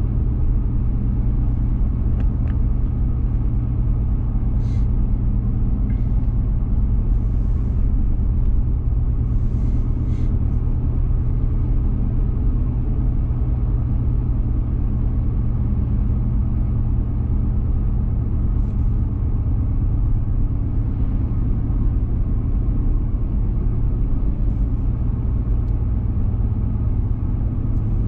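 Car driving at a steady speed, heard from inside the cabin: a steady low rumble of engine and tyre road noise, with a few faint ticks.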